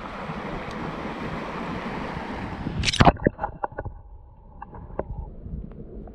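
Rushing water and wind noise from kayaking on a creek, broken about halfway by one loud knock. After the knock it goes quieter, with a faint steady tone and a few light clicks.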